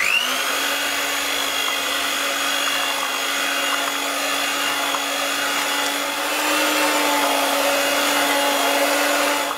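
Electric hand mixer beating a thick cheesecake batter: the motor spins up with a quick rising whine, runs at a steady pitch, then switches off at the end.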